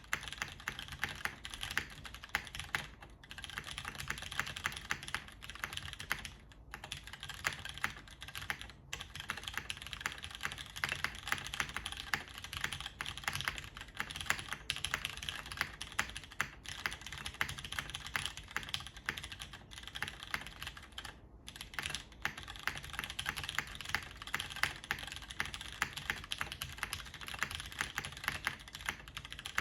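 Fast typing on a tenkeyless mechanical keyboard with Cherry MX Brown switches on an aluminium plate, under DCS keycaps. The keystrokes come in a dense, steady run of clacks, broken by a few brief pauses.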